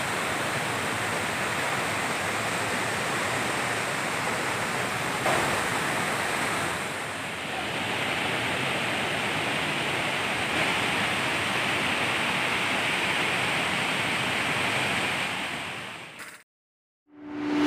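Steady murmuring rush of a small waterfall and shallow stream. It fades out about sixteen seconds in.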